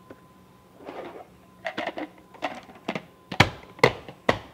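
Plastic lid being fitted and pressed down onto a loaded plastic blender jar: about ten irregular clicks and knocks, the loudest in the second half.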